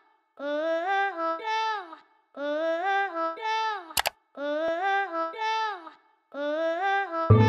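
Channel intro jingle: a short, high, voice-like melodic phrase played four times with brief gaps, with one sharp click about four seconds in as the subscribe button is clicked. Just before the end, different background music with a heavy bass line starts.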